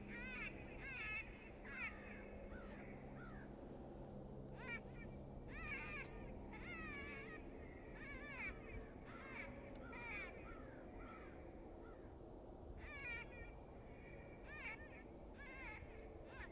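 Electronic predator call playing an animal distress sound: high, wavering squealing cries repeated in short groups, with one sharp click about six seconds in.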